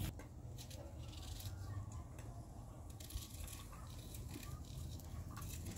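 Faint scraping and small clicks of a kitchen knife peeling and cutting a raw vegetable by hand, over a low steady rumble.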